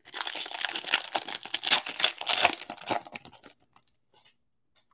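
A 2020 Donruss Football trading card pack's wrapper being torn open and crinkled, a dense crackle lasting about three and a half seconds, followed by a few faint clicks as the cards are handled.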